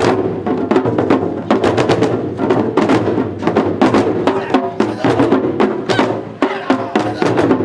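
Loud festival dance music with drums and many sharp wooden clacks in a busy, fast rhythm.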